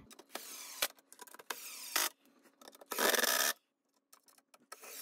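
Wood screw being driven by hand with a screwdriver into a pine crate board, grinding and creaking in four short turning strokes about a second apart, the third the loudest.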